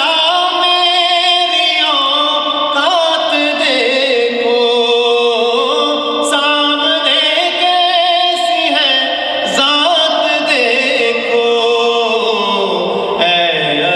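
A man singing a devotional Urdu poem (naat) unaccompanied into a microphone, in long held notes that slide and bend between pitches.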